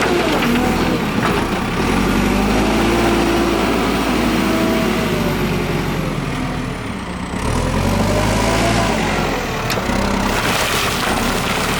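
JCB 3CX backhoe loader's diesel engine running as the machine works, its pitch rising and falling with the load; it eases off briefly about seven seconds in, then picks up again.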